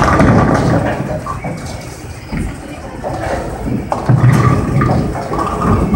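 A bowling ball thuds onto the wooden lane and rolls away with a low rumble. About four seconds in comes a sharp crack and a clatter as it strikes the pins.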